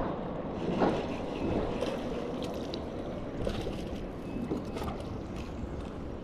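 Wind on the microphone and lapping water, with a hooked fish splashing at the surface beside the kayak as it is reeled in on a light spinning rod. The splashes come as short scattered sounds, mostly in the second half.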